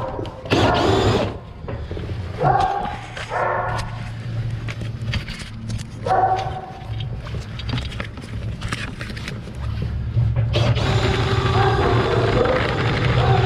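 Dogs barking in several short bursts over a steady low mechanical drone that grows louder about ten seconds in.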